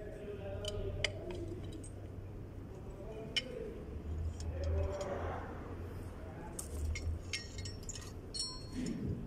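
Scattered light metallic clinks and taps as drum-brake parts (brake shoe, springs, adjuster) are handled against the steel backing plate of a rear drum brake, with a cluster of quick clinks near the end. A steady low hum runs beneath.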